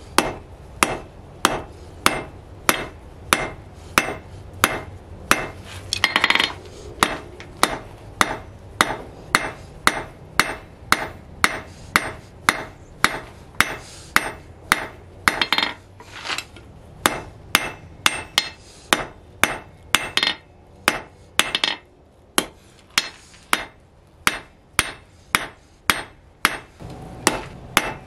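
Blacksmith's hand hammer striking the red-hot end of a steel rod on an anvil: a steady run of sharp metallic blows, about two a second.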